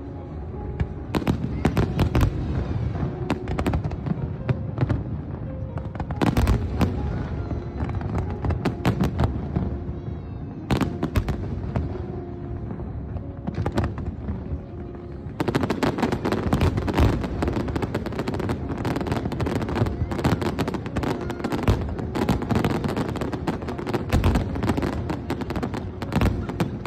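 Aerial fireworks display: a string of booming shell bursts with crackle, thickening into a dense, continuous barrage of bangs and crackling about halfway through.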